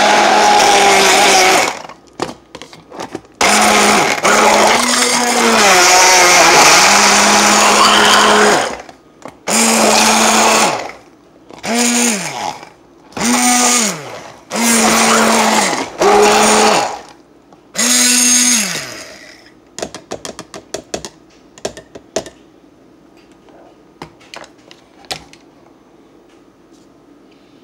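Hand-held immersion blender blending strawberries and banana in a tall plastic beaker, run in about seven bursts of one to five seconds, its motor pitch falling away each time it is switched off. After the last burst come a few light clicks and knocks.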